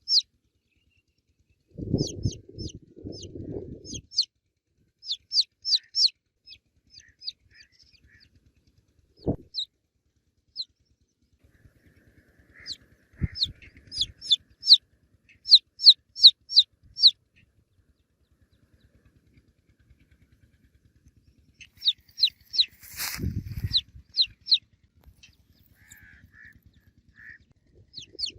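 Baby chicks peeping in runs of quick, high, downward-sliding peeps, with pauses between the runs. Low hen-like clucking comes about two to four seconds in, and a short rustling thump about two-thirds of the way through.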